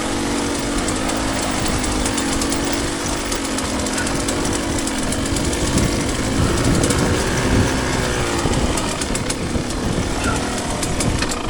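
Two-stroke dirt bike engine running, its revs rising and falling with the throttle.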